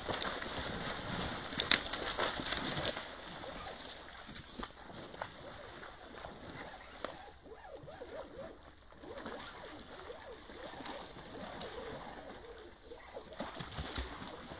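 Handling noise of a fishing rod and reel: rustling and clicks, loudest in the first few seconds with one sharp click, then quieter with scattered small clicks.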